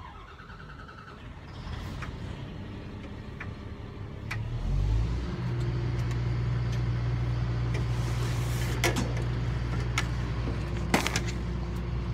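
Bucket truck's diesel engine starting about four and a half seconds in, then running steadily. A few sharp knocks come near the end.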